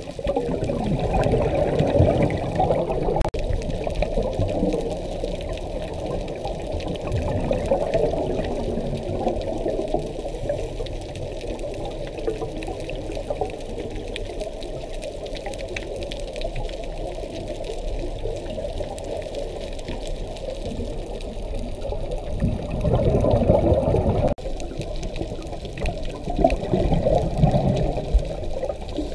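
Scuba diver's exhaled bubbles gurgling and rumbling past an underwater camera, with louder surges of bubbling near the start and twice near the end.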